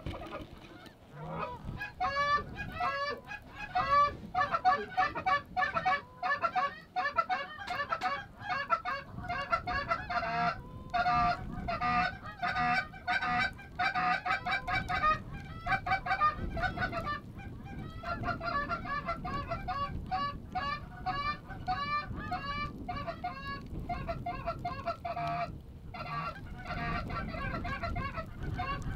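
A flock of Canada geese honking, with many overlapping calls in quick succession and a few brief lulls.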